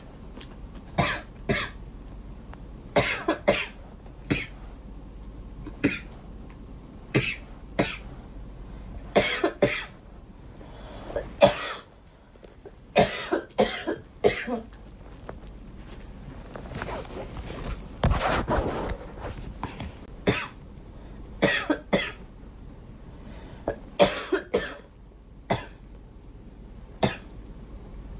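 A girl coughing over and over, short coughs coming singly or two or three close together with pauses of a second or more between, and one longer stretch of coughing about two-thirds of the way through.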